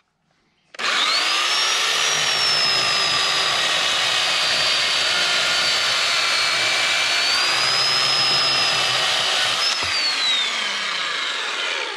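Poulan 3.5 hp corded electric chainsaw with skip chain. It starts about a second in with a rising whine, runs steadily while cutting through a fresh-cut green oak log, then dies away with a falling whine near the end.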